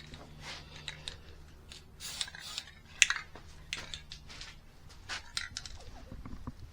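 Aerosol spray-paint can hissing in short, irregular bursts as fresh welds are painted against rust, with a few handling clicks. A faint steady low hum runs underneath.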